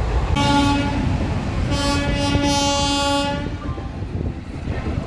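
Indian Railways train horn sounding two blasts, a short one of about a second and then a longer one of about a second and a half, over the low rumble of the moving train.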